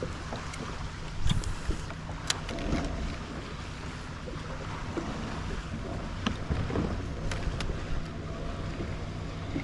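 Water sloshing against a kayak hull with wind on the microphone. A few scattered sharp knocks come from gear or a paddle against the hull.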